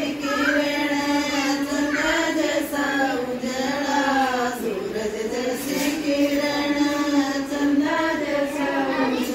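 A group of women singing a traditional Hindi folk song together, with long held, wavering lines.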